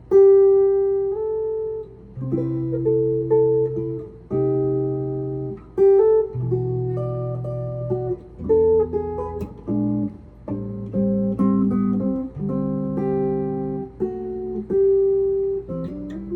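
Instrumental music played on a plucked string instrument: a melody over low bass notes, each note starting sharply and ringing on as it fades.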